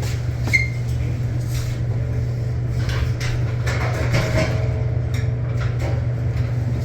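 Steady low machine hum with scattered light knocks and clatter, and a short high metallic squeak about half a second in.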